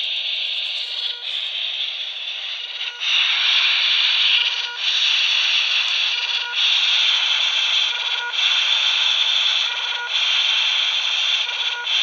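Quansheng handheld radio's speaker hissing with static as it receives a 433 MHz ATmega328 beacon, with a short low beep roughly every two seconds as the beacon transmits. The hiss grows louder about three seconds in.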